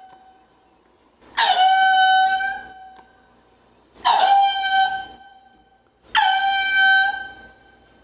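Ring-tailed lemur calling: three long, steady cries, each just over a second long and dipping slightly in pitch at the start, about two seconds apart.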